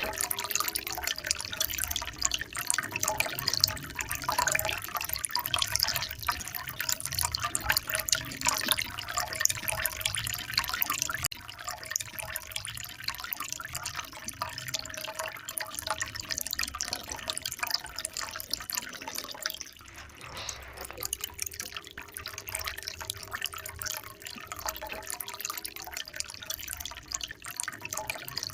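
Running water trickling and splashing steadily, with a dense patter of small drips and splashes.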